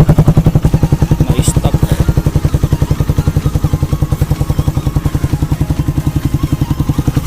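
Suzuki Raider 150's single-cylinder four-stroke engine idling through an aftermarket Akrapovic-style muffler: a steady, rapid, even exhaust pulse, easing slightly in level about a second in.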